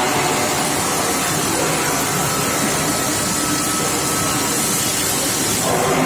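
Steady industrial din of a steel pipe induction heat treatment line running, a hissing noise spread evenly across all pitches, with a faint steady high whine over it.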